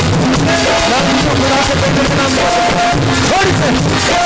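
Loud worship music with a drum beat and a bending melody line.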